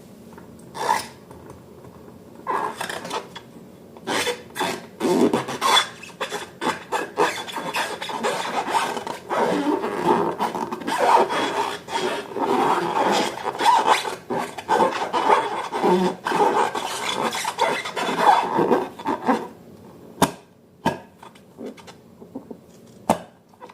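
Irregular rubbing and scraping with many short sticky clicks, the handling sounds of slime being worked and mixed; it eases off briefly twice near the end.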